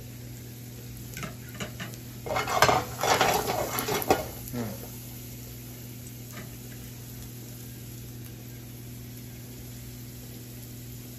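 A metal spoon clattering rapidly against a dish for about two and a half seconds, a couple of seconds in, after a few lighter clinks. After it, only the faint sizzle of sliced garlic in a little oil in a nonstick frying pan over a low steady hum.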